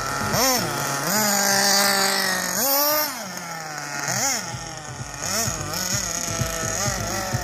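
Radio-controlled buggy's motor revving in repeated bursts as it is driven, its pitch rising and falling again and again, held steady for a couple of seconds about a second in.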